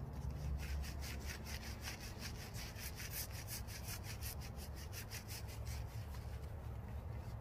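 Hands scrubbing shampoo lather into a small dog's wet coat: quick, even rubbing strokes, about five a second, that fade out near the end.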